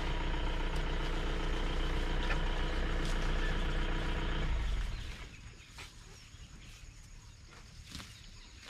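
Safari jeep's engine running steadily at idle, then cutting off abruptly about five seconds in, leaving faint outdoor background with a few light clicks.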